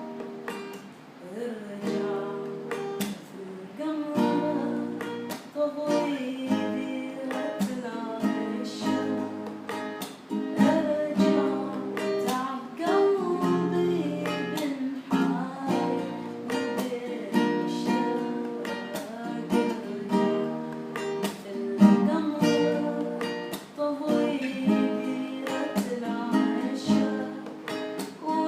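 Music led by a strummed acoustic guitar, its strokes falling in an even rhythm: the intro of a Gulf Arabic song in a reggae-tinged style.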